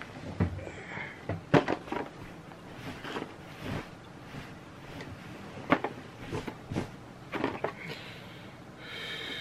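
Objects being handled by hand: scattered clicks, taps and rustles, with a short high steady tone near the end.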